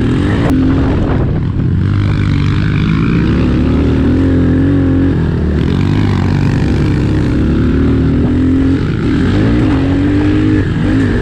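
Honda CRF110F pit bike's small single-cylinder four-stroke engine running loud and close while being ridden, its pitch rising and falling with the throttle.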